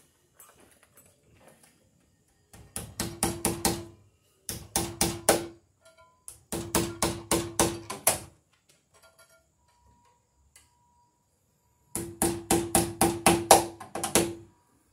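Hammer driving a cable staple into wooden framing: four bursts of quick blows, several a second, each blow ringing briefly off the metal. The staple is not going in well.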